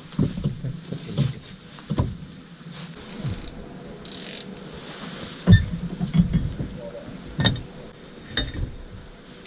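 Scattered knocks and clatter of fishing gear being handled on a boat's deck, with a short hiss about halfway through.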